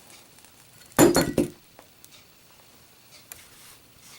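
Metal Zippo lighter dropped in a drop test, striking a hard surface about a second in with a short clinking clatter of a few quick hits.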